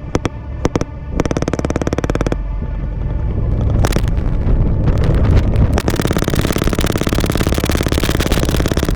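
Bursts of rapid automatic gunfire: a few short bursts at first, then a long continuous stream of fire from about two-thirds of the way in. A vehicle engine rumbles steadily underneath.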